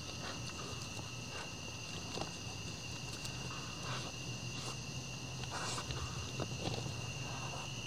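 A steady, high insect chorus of crickets drones throughout, with scattered light clicks, knocks and rustles from whitetail bucks feeding at plastic feed pans and stepping on grass.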